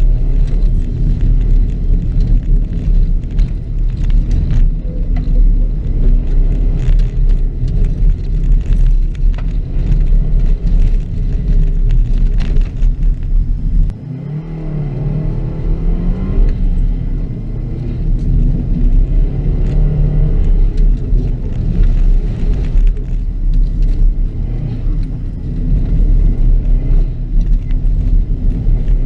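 2006 Subaru WRX's turbocharged flat-four engine running hard through a dirt rallycross course, with a dense rumble and many sharp clicks and rattles over the first half. About halfway the sound drops suddenly, then the engine note climbs again as it accelerates.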